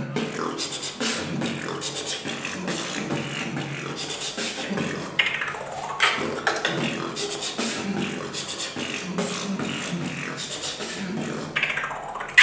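Solo human beatboxing: a continuous rhythmic beat of mouth-made drum sounds, with low kick-like thuds alternating with sharp snare- and hi-hat-like clicks.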